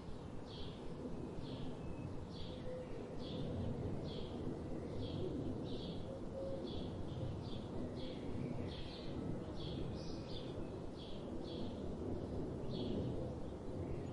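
A bird calling a short chirp over and over, roughly once or twice a second. Under it runs a steady low rumble of outdoor background noise.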